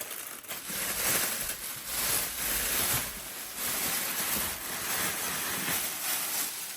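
Packaging being handled and unwrapped: a continuous rustling hiss that swells and eases every second or so.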